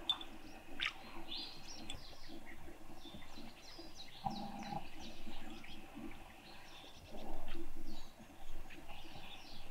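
Small birds chirping, with many short, high calls throughout. A brief low sound comes about halfway, and a louder low sound lasts about a second near the end.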